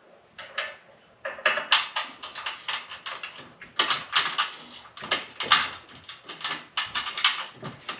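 Irregular short scrapes and light knocks of hardware being handled as a truck running board is shifted on its mounts and its bolts are fitted by hand, left loose.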